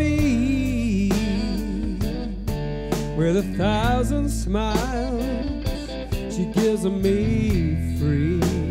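Rock'n'roll band playing live: a bending lead line with vibrato over a steady bass and drum beat.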